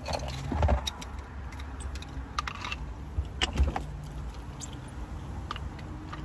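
Several pairs of nunchucks being handled and hung around the neck: sticks knocking together and chain links jingling in scattered clicks and short rattles.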